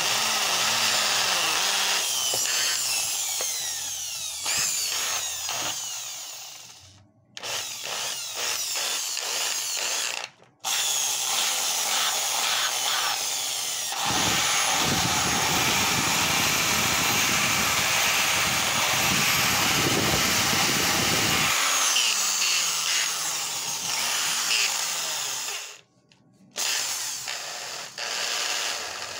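Repaired Bosch corded impact drill running with no load, spinning up and coasting down several times in short runs. It cuts out briefly twice, then runs long with a coarser, buzzier stretch about halfway through, and stops near the end.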